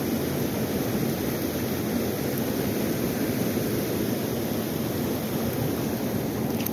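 Steady rush of fast, high-flowing river current close to the microphone.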